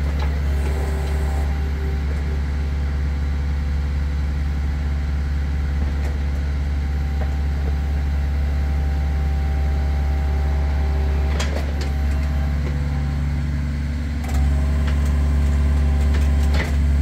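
Hitachi ZX48U-6 mini excavator's diesel engine running steadily while the boom and grab are worked, with a couple of sharp knocks. The engine sound gets louder about three-quarters of the way through.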